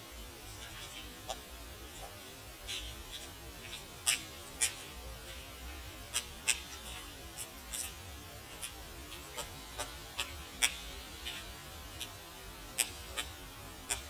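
White-backed woodpecker's bill striking a birch trunk: sharp, irregular taps, roughly one or two a second, over a low steady hum.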